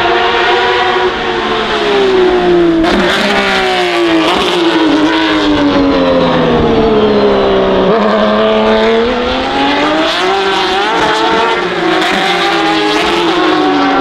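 Porsche 991.2 RSR's 4.0-litre flat-six race engine with open exhaust, loud, its note falling as it brakes with a sharp gear-change break about three seconds in. It then sinks lower and climbs again as it accelerates, with further gear changes near the end.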